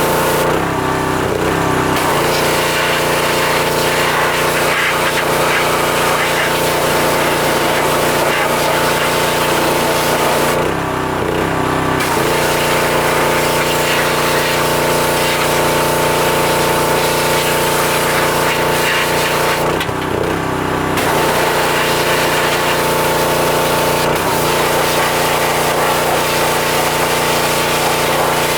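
Pressure washer running, with the spray hissing steadily. Three times, for about a second, the spray stops and the machine's note shifts as the trigger is let go, then the spray starts again.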